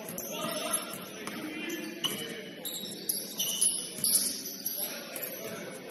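Basketball game sounds: sneakers squeaking on the court in short high squeals, with scattered sharp knocks.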